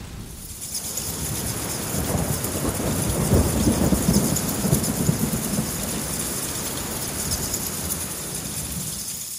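Steady rain hissing, with a long rumble of thunder that builds about two seconds in and eases off after about six seconds.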